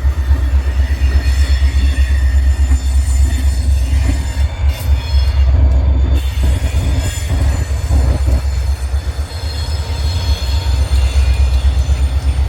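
Freight train rolling past with a heavy, steady low rumble and faint high-pitched wheel squeal from the rails.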